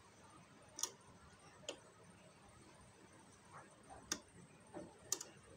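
Faint, irregular clicks from a domestic sewing machine whose handwheel is turned slowly by hand, stitch by stitch: four sharp clicks a second or two apart, with a few softer ticks between.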